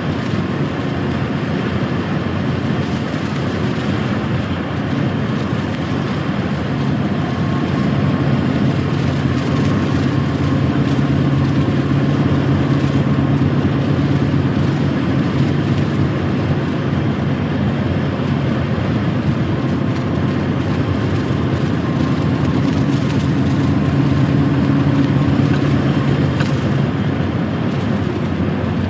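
A truck's diesel engine and tyre-and-road noise while driving, heard from the cab. The steady low engine drone grows louder twice for several seconds, as if pulling harder.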